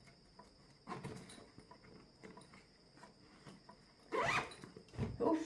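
Zipper on a bag pulled in one quick stroke about four seconds in, with faint handling rustle and clicks around it and a soft knock just after.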